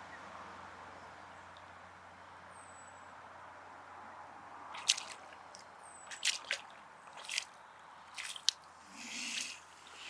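Water lapping and splashing at the edge of a lake: quiet for the first few seconds, then a run of short, sharp splashes and drips from about five seconds in. Two faint, high chirps sound early on.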